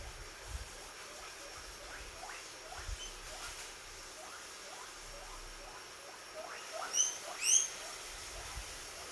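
Guinea pig squeaking, a call the uploader labels as happy: a run of short, faint rising chirps, about two a second, building to two loud, high rising squeals about seven seconds in.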